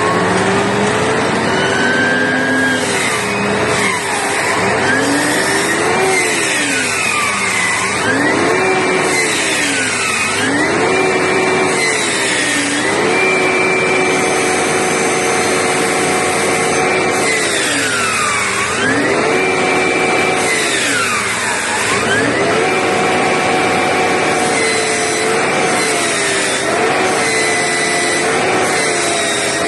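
Mercedes-Benz Travego coach's retarder whining over steady drivetrain and road noise, a whine in several tones that slides down and back up in pitch several times and holds level in between.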